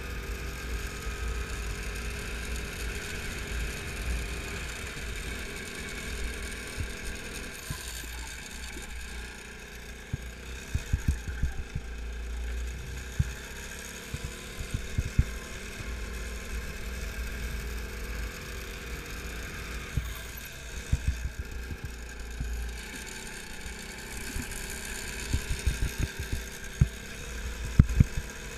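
Go-kart engine running as the kart laps the track, heard from onboard over a steady low rumble. From about ten seconds in there are repeated clusters of sharp knocks and rattles.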